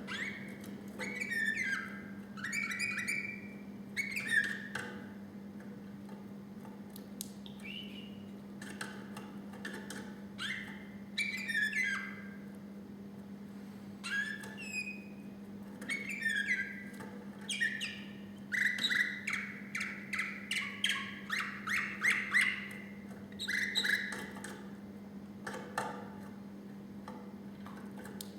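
Canary singing in separate phrases of fast trills and gliding whistled notes with short pauses between them, the loudest a quick run of repeated notes near the middle.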